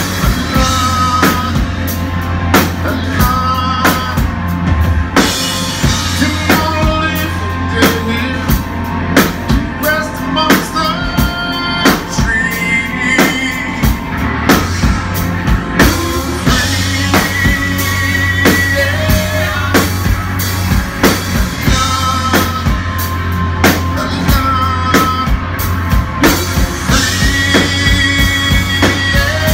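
Rock band playing live: drum kit keeping a steady beat under electric bass and electric guitar, with a male singer on the vocal.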